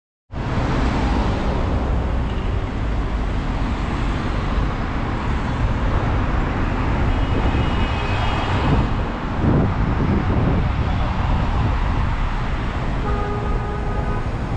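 Busy city road traffic: cars passing with a steady rumble of engines and tyres, and a car horn tooting briefly around the middle and again near the end.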